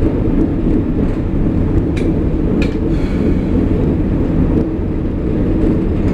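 Uerdingen VT 98 railbus running along the track: a steady low drone of its underfloor diesel engines and wheels on rail. Two brief high squeaks come about two and three seconds in.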